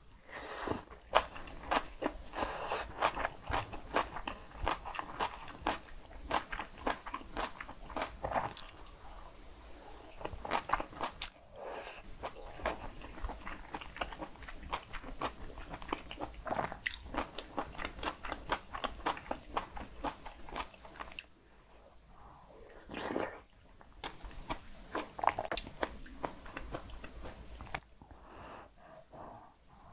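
Close-miked chewing and biting of cockle and spicy raw radish bibimbap and soft tofu stew: quick irregular crunches and wet mouth clicks, with brief pauses between mouthfuls.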